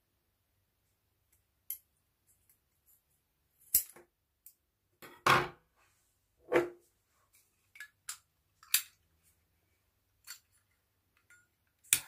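Irregular clicks and snips of small metal scissors and tweezers trimming and tucking paracord, a second or two apart. Just before the end, a sharp click as a jet-flame lighter is lit.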